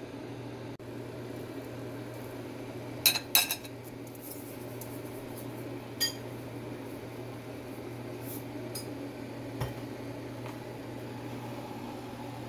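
Kitchen utensils clinking a few times: a quick cluster of sharp clinks about three seconds in, then single ones near six and ten seconds. Under them runs a steady low hum.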